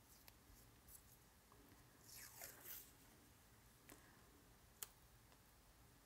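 Faint peeling rustle of washi tape pulled off its roll, the longest stretch about two seconds in, with a few small ticks around it.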